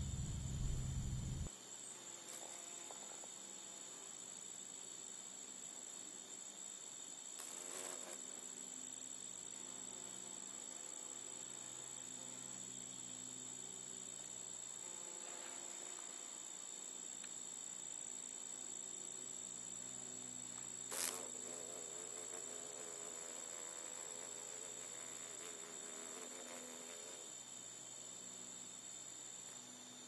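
Crickets trilling steadily in a high, unbroken tone. A low rumble cuts off about a second and a half in, and there is a single sharp click past the middle.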